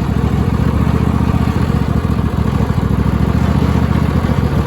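26 hp Briggs & Stratton engine on a Cub Cadet lawn tractor running steadily under load while the tractor drives along. The engine is trying to die, with the hydrostatic transmission dragging for want of fluid.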